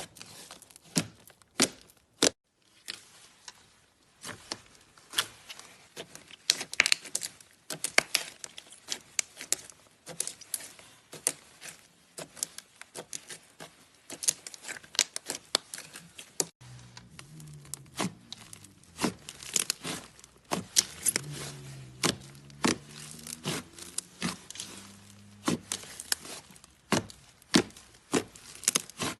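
Slime being handled and squeezed, giving a dense, irregular run of crackles, clicks and pops. In the second half a few faint low tones sound underneath.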